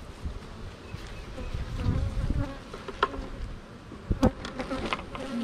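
Honeybees buzzing in a steady hum around an opened hive, with a few sharp wooden knocks as the hive box is pried loose with a hive tool and lifted; the loudest knocks come a little past four seconds.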